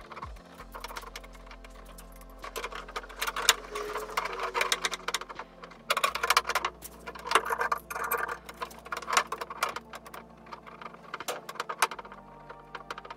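Rapid, irregular light tapping and clicking from paintless dent repair work on a car body panel, thickest through the middle. Soft background music plays underneath.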